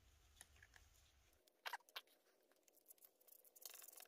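Near silence with two faint clicks a little under two seconds in, from small metal parts being handled while the cap is bolted onto a cordless grease gun's pump assembly.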